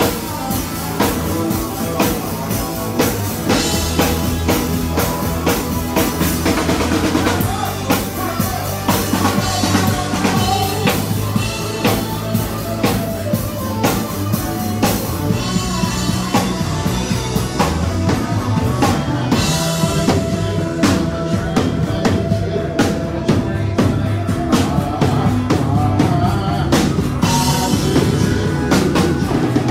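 Live band playing loudly: a drum kit keeps a steady beat under electric and acoustic guitars and bass.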